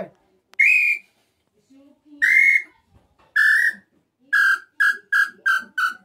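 Handheld inhambu (tinamou) bird-call whistle blown with the hands cupped around it. It gives three long whistled notes, each lower than the last, then a quickening run of short notes falling slightly in pitch, in imitation of the tinamou's song.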